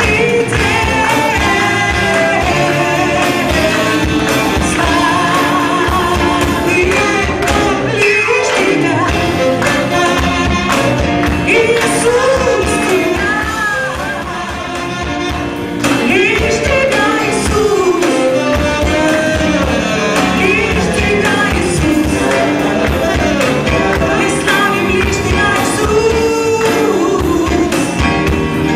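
Live church worship band playing an upbeat song with women singing, over drums, electric and acoustic guitars, keyboard and saxophone, in a large hall. A brief quieter passage comes about halfway through.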